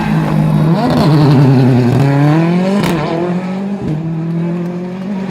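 R5 rally car's turbocharged four-cylinder engine at full throttle, its pitch climbing, then dropping abruptly after a sharp crack about three seconds in as it shifts gear, before running on at a lower, steadier pitch.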